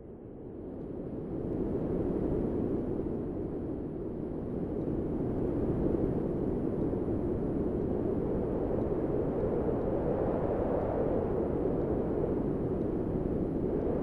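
Wind sound effect: a low, steady rush of wind that swells up over the first couple of seconds, dips slightly, then holds even.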